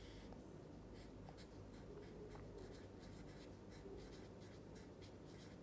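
Felt-tip marker writing and drawing on paper: faint, quick strokes and scratches.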